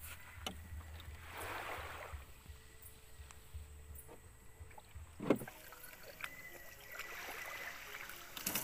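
Water washing against the hull of a small wooden outrigger boat, rising in two soft swells. A single sharp knock comes about five seconds in.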